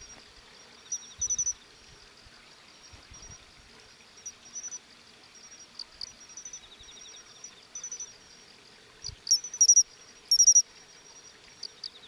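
Matsumushi (pine cricket, Xenogryllus marmoratus) calling: short, high-pitched chirps in twos and threes, repeated at intervals, the loudest groups near the end. A second insect's softer, lower rapid trill comes in briefly twice, over a faint murmur of running water.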